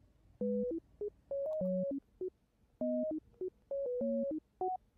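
Background music: a light electronic tune of short, clean synth notes hopping between pitches, some with a lower note sounding under them.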